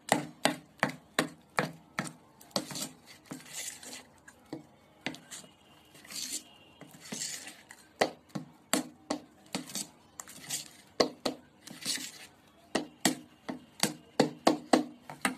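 Metal spoon stirring thick ground red-banana paste in a steel bowl, clinking sharply against the bowl's sides about two to three times a second, with softer wet scraping between the clinks.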